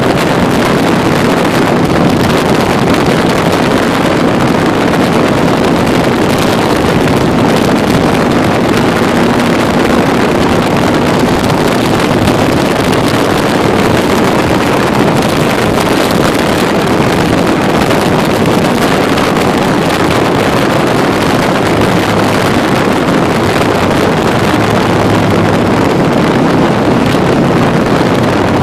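Can-Am Spyder three-wheeled motorcycle running at road speed, its engine note steady under heavy wind rushing over the microphone.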